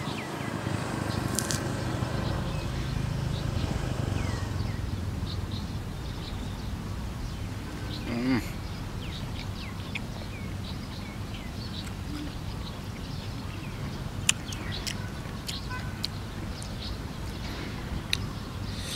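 Small birds chirping in short high calls over a steady low background rumble, with a few sharp clicks near the end.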